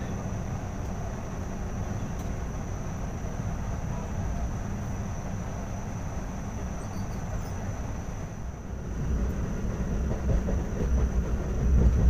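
Passenger train running on the rails, a steady rumble of wheels and coach with a faint high whine over it. The rumble grows louder and rougher from about nine seconds in.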